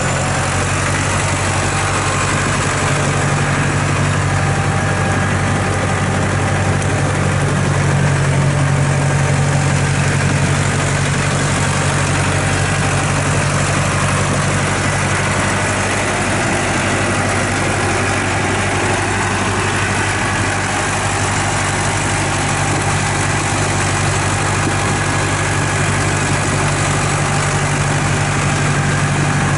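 Diesel engine of a 2006 Massey Ferguson 5475SA tractor idling steadily.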